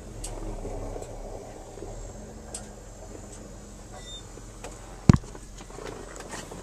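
Quiet truck cab before the engine is started: a low steady hum with faint clicks and rustles of handling, and one sharp thump about five seconds in.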